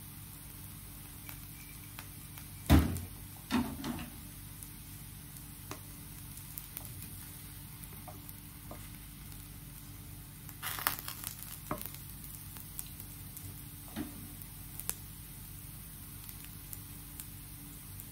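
Pancake batter frying in a hot oiled pan, a steady faint sizzle. A loud knock comes about three seconds in, a smaller one just after, and a few light clicks around the middle.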